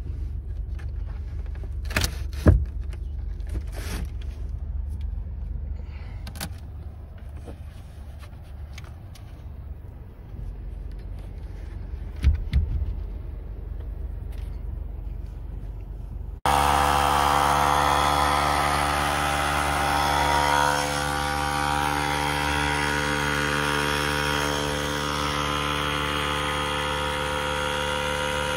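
Light knocks of the MDF camping box lid being handled. About halfway through, an electric air compressor switches on abruptly and runs with a steady hum and hiss, inflating an air mattress through a valve adapter.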